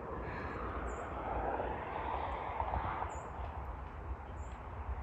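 A steady rushing noise with a low rumble underneath, swelling a little in the middle. Three faint, short, high chirps from small birds sound about a second in, around three seconds in and near the end.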